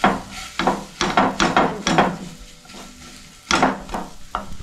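A spatula knocking and scraping against a frying pan in quick, irregular clinks, with a pause of about a second past the middle, as spiced mashed-potato filling is stirred and fried.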